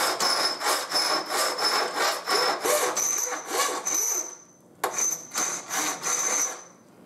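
Hand file rasping back and forth across a small metal shaft, about three strokes a second, filing a flat onto its end. From about three seconds in a high ringing tone sounds on each stroke. A little past four seconds the strokes pause, a sharp click sounds, and the strokes resume, stopping shortly before the end.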